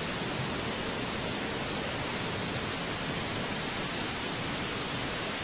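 Steady, even hiss of static-like noise with no rhythm or events in it.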